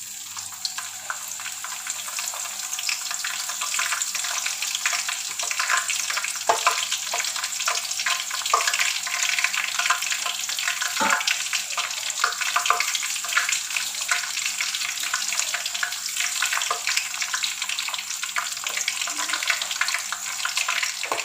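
Stalks of lemongrass (serai) frying in hot oil in a pan: a steady sizzle with scattered crackling pops.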